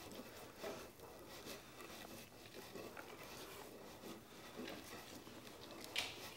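Faint rubbing and light tapping as a heated hand iron (indu) is pressed and worked over the fine-split bamboo brim of a Korean gat, shaping the brim; a slightly louder short scrape near the end.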